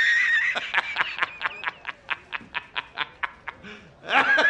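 The J. Jonah Jameson laughing meme: a man's hearty laugh that opens on a high held cry, breaks into quick staccato 'ha-ha-ha' bursts about five a second that fade away, and flares up again loudly near the end.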